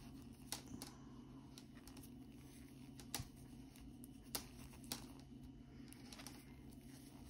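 Faint, irregular clicks and taps of circular knitting needles and yarn being handled during a bind-off, a handful in all, over a steady low hum of room tone.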